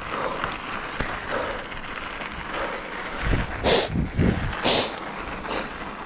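Mountain bike rolling over a dirt and gravel trail, with tyre noise and wind across the camera microphone. Several short, louder rushes and thumps come between about three and five and a half seconds in, as the bike hits bumps.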